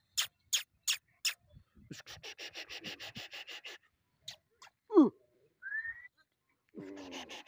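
Pakistani bully dog (Bully Kutta) panting with its mouth open, in breathy puffs that speed up to a rapid run of about eight a second. About five seconds in there is a short, loud cry that falls sharply in pitch, the loudest sound here.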